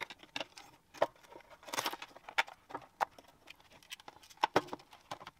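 Scattered light clicks, taps and rustles of a plug-in ECU circuit board, its metal case and wiring loom being handled and fitted together, with a few sharper knocks about a second in and again near the end.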